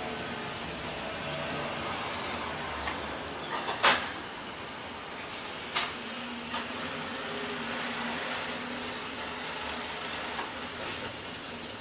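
Steady outdoor background hiss with two sharp slaps about two seconds apart, near four and six seconds in, from a martial artist's stepping and striking during a solo form on a wooden balcony deck.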